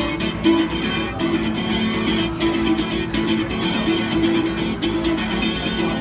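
Acoustic guitar strummed in a steady, repeating chord pattern: the instrumental intro of a folk song, before the vocal comes in.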